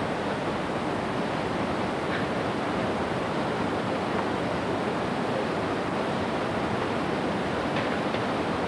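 Steady rush of a fast river pouring through rocky rapids.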